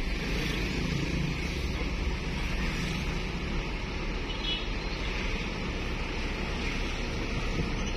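Steady engine and road noise of a moving vehicle heard from inside its cabin, driving at low speed through traffic.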